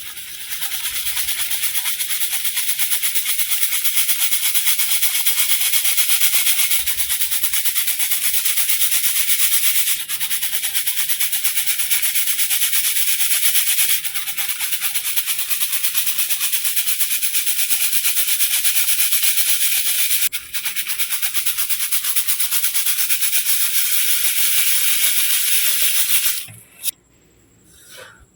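Crumbled baking soda being crushed and worked by hand, a dense fine crackling hiss of powder and grains. It runs on with three brief breaks and stops shortly before the end.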